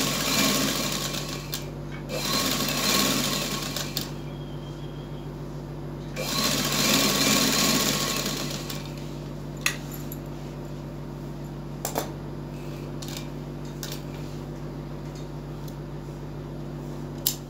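Electric sewing machine stitching a fabric strip in short runs, two back to back at the start and a longer one from about six to nine seconds in. After that, a few separate sharp clicks.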